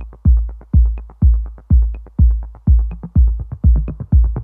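Electronic dance music with a heavy bass kick drum about twice a second and quick hi-hat-like ticks between the beats.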